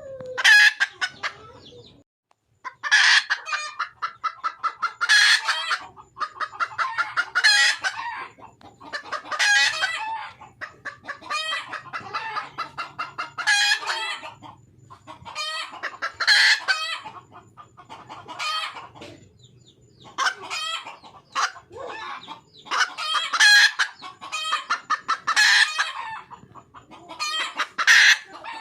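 Red junglefowl hen calling in a long series of bouts. Each bout is rapid clucks that build to a loud cackle, and the bouts repeat every two to three seconds: a wild hen's call to attract a male.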